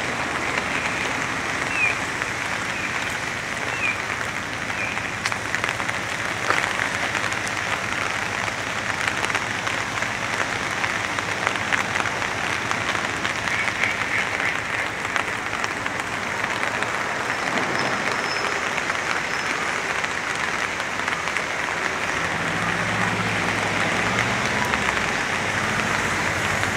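Steady rain falling, a dense hiss of drops with many close, sharp drop hits. A few short high chirps sound in the first few seconds, and near the end a motor vehicle's engine rumble comes in and grows.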